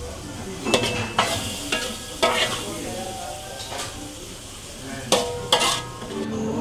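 Long-handled metal spoon scraping and knocking against a wok as cooked octopus in sauce is scooped onto a plate, about eight sharp strikes, some ringing briefly, over a low sizzle from the pan.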